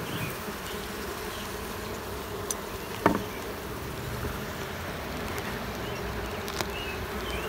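Honeybees buzzing around an open hive, a steady hum, with a single sharp knock about three seconds in.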